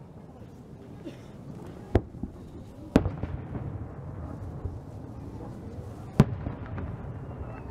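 Aerial firework shells bursting: three sharp bangs, about two, three and six seconds in, the one at three seconds the loudest.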